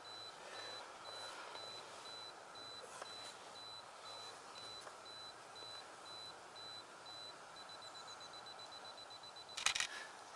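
Camera self-timer beeping: a single high beep about twice a second, quickening into rapid beeps near the end, then a short burst of shutter clicks as the photo is taken.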